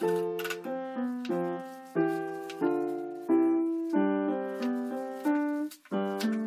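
Background piano music: a gentle melody of single struck notes, each ringing out and fading before the next one.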